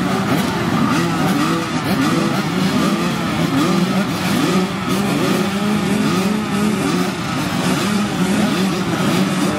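A group of small youth motocross bikes running together at the starting line, their engines revving up and down in overlapping, constantly changing pitches.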